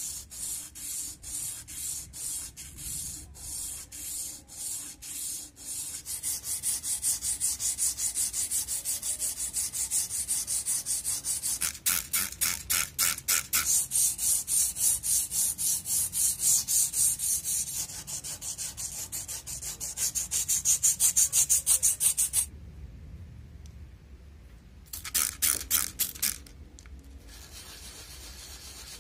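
Sandpaper rubbed by hand over a steel axe head in rhythmic back-and-forth strokes. The strokes are about one and a half a second at first, quicken from about six seconds in, stop for a couple of seconds near the end, then resume briefly.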